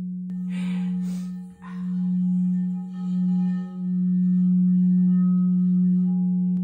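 Crystal singing bowls ringing: a strong, steady low tone that pulses and dips a few times, with higher bowl tones joining about a second and a half in. A short hiss sounds near the start.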